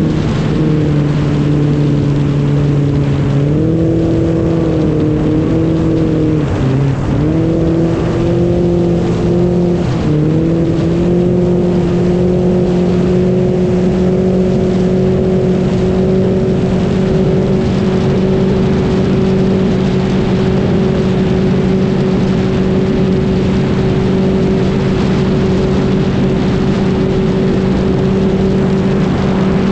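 A vehicle engine running with a steady hum. Its pitch shifts up and down a few times in the first ten seconds, then holds steady.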